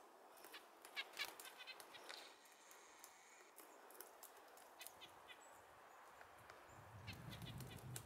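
Faint, irregular taps of a female black-backed woodpecker pecking and flaking bark off a tree trunk while foraging for beetle larvae. The taps come in quick clusters in the first couple of seconds and again near the end.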